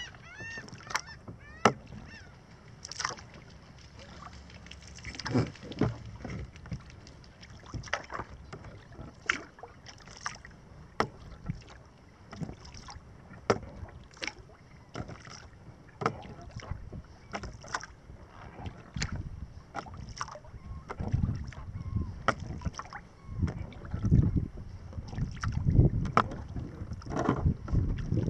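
Kayak paddle blades dipping and pulling through calm water, a short splash about every one and a half seconds, with water running along the hull. Low wind rumble on the microphone builds over the last several seconds.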